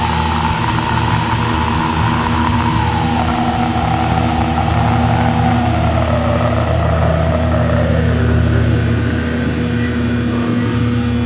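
Heavy metal band's distorted electric guitar chord held and ringing, with no drums. Over it a higher note slowly slides down in pitch and fades out about eight seconds in.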